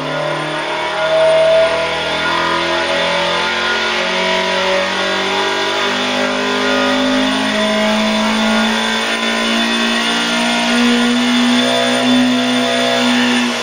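2.0-litre Coventry Climax race engine running under load on an engine dynamometer in a step test, its pitch climbing in even steps of 250 rpm from about 4,500 to about 7,400 rpm.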